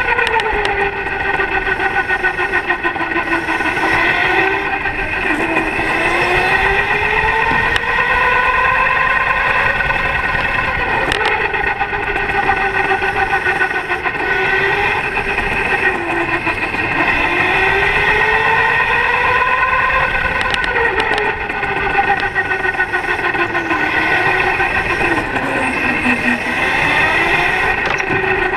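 Electric go-kart's motor whine, heard on board. Its pitch rises and falls again and again with the kart's speed, with a steadier higher whine above it.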